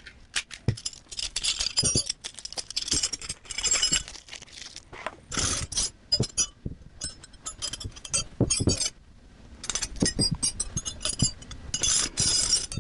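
Steel Craftsman combination and speed wrenches clinking and clattering against each other as they are handled and set down, in many quick irregular knocks with short metallic rings.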